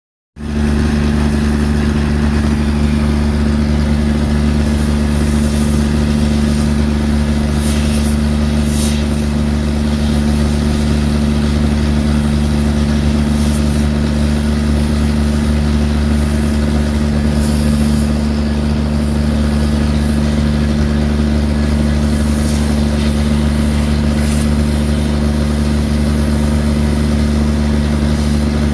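Excavator diesel engine running steadily at an even speed, with a few brief high-pitched scrapes over it.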